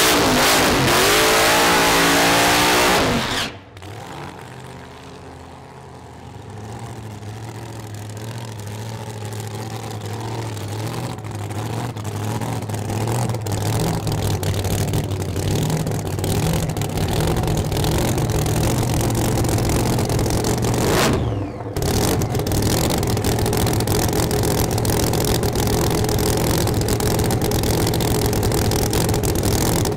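Supercharged 521-cubic-inch BAE Hemi on methanol in a drag-racing Holden VT Commodore: loud at high revs for the first three seconds, cut off abruptly, then idling with a steady note that grows louder, and after a second abrupt cut, idling loudly to the end.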